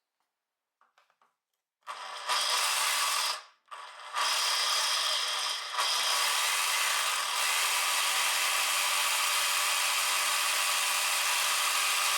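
Jigsaw mounted under a jigsaw table, sawing wood. It starts about two seconds in, stops briefly a little later, then starts again and runs steadily.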